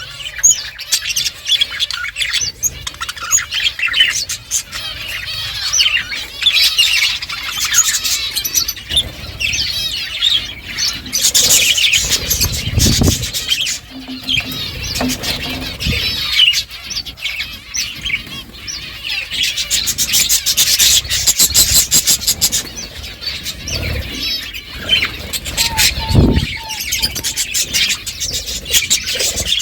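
Several budgerigars chirping and warbling continuously, with stretches of rapid clicking mixed in.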